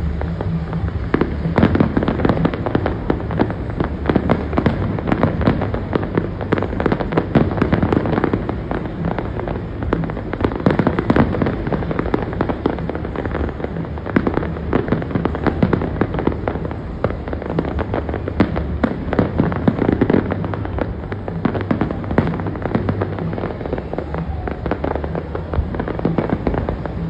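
Aerial fireworks display: a dense barrage of rapid, overlapping shell bursts and crackling, many bangs a second.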